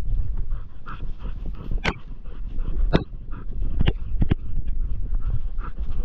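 A dog giving short, repeated high cries over a steady low rumble, with several sharp knocks.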